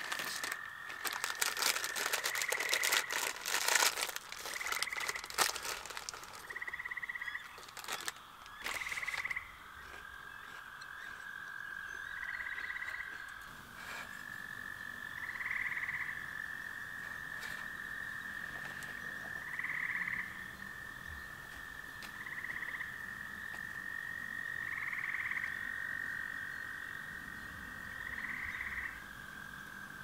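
Frogs calling: a steady high trill with a louder call repeating about every two to three seconds. During roughly the first nine seconds, paper crinkles and rustles close by.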